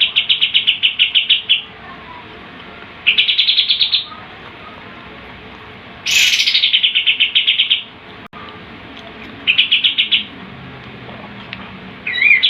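Kapas tembak songbird singing its rapid 'tembakan' roll: a high, fast trill of quickly repeated notes given in four bursts of one to two seconds each, with short pauses between, the third opening with a sharp high sweep.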